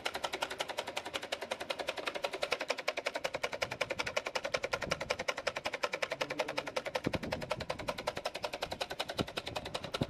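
Battery-powered toy fish-tail boat running in water: its small motor spins a Z-shaped crank that shakes the plastic rudder, making a rapid, very even puck-puck ticking of about ten ticks a second.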